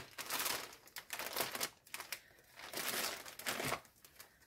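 A small packaging bag crinkling in several short bursts as it is handled.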